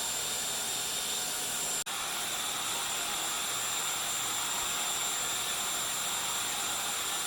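Steady machine running noise: an even hiss with a steady high-pitched whine. It breaks off for an instant about two seconds in.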